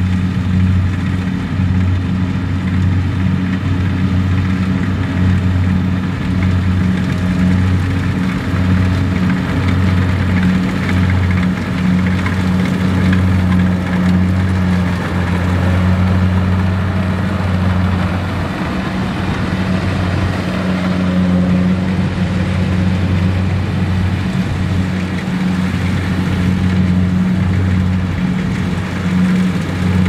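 Kubota rice combine harvester running at steady working speed, a continuous low diesel drone from its engine and threshing machinery.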